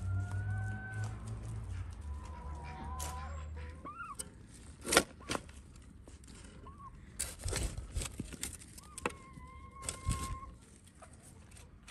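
A shovel digging into loose garden soil, with several sharp scrapes and thuds of the blade. Chickens cluck and give drawn-out calls throughout. A low hum fades out about four seconds in.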